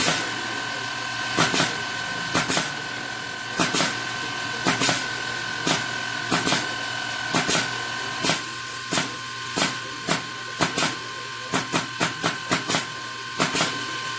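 Automated machine running with a steady high whine, its mechanism clacking in quick pairs about once a second, the clacks coming faster near the end.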